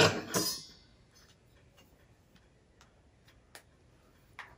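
Small brass votive candle holders being handled: a clatter of metal right at the start, then a few faint, irregular light clicks as the pieces are moved.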